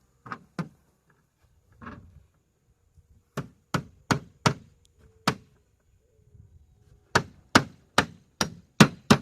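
Hammer blows on wood, in groups: a few single knocks, then a run of about five blows and, near the end, a quicker run of about six, as if driving nails.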